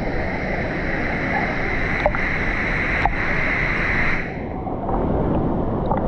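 Steady rush of a waterfall and fast-flowing river water, a dense hiss that eases slightly about four seconds in.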